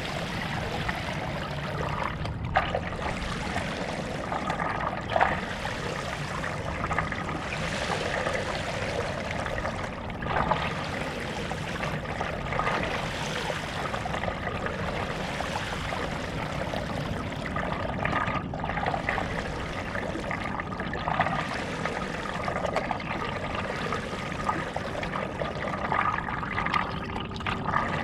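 A stand-up paddle blade dipping and pulling through lake water, with splashing and water trickling off the blade; sharper splashes come every few seconds as the strokes land.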